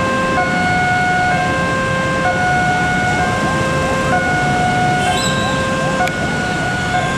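Indonesian railway level-crossing warning alarm sounding an electronic two-tone signal that swaps between a higher and a lower pair of tones about once a second, with a steady hiss of wet-road traffic underneath.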